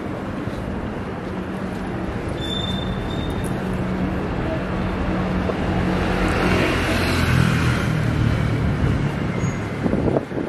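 Street traffic with a motor vehicle's engine hum building as it passes close by, loudest about seven seconds in, then easing off.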